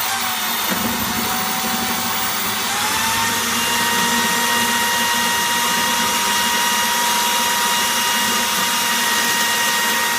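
Electric drill running steadily at speed with a high whine, picking up speed about a quarter of the way in, while drilling a pilot hole for a screw in a snowblower's metal bottom plate.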